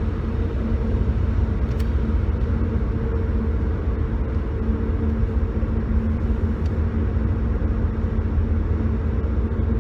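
Steady road and engine rumble inside a moving car's cabin, with a faint steady hum over it.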